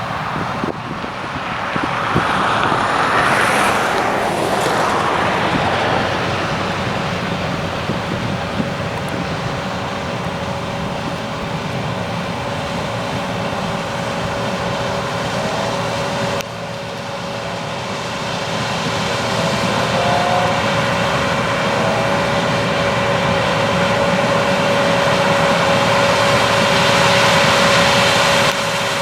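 John Deere 9600 combine running under load while harvesting corn: a steady machine drone with a constant whine over it. It swells louder a few seconds in, dips abruptly about halfway, then builds again toward the end.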